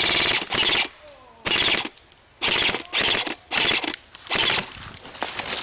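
Airsoft gun firing in about six quick bursts of rapid shots, the first burst the longest, with short pauses between them.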